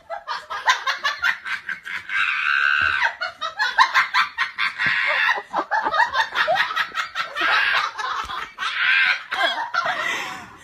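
People laughing in quick, repeated bursts.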